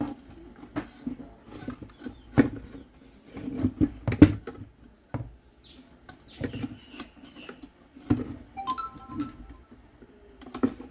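Irregular knocks, clicks and rubbing as the back panel of an Intex home theater's wooden subwoofer cabinet, with its amplifier board and wires attached, is worked loose and pulled out of the box. A short steady tone sounds briefly near the end.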